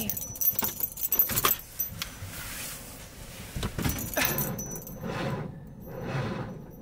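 A bunch of keys jangling on the ignition key as it is turned, with sharp clicks in the first second and a half.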